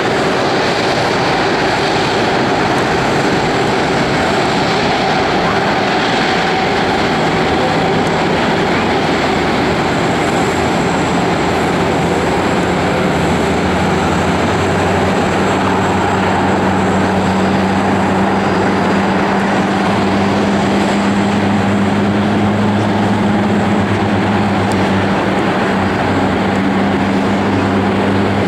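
Airbus A330-200 jet engines during landing: steady loud engine noise, with a low hum that comes in about a quarter of the way through and grows stronger.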